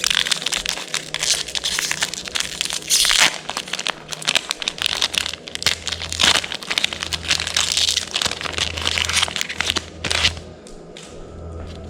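Plastic booster-pack wrapper crinkling and crackling as it is handled, with a few louder crumples. It stops about ten seconds in.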